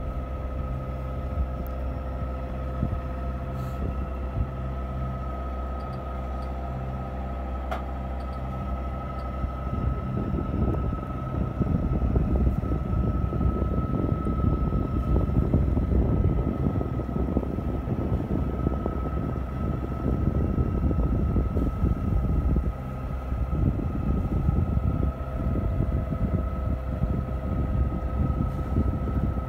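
Sailboat's engine running steadily while motoring, with a steady whine high above the drone. From about ten seconds in, wind rumbles on the microphone and becomes the loudest sound.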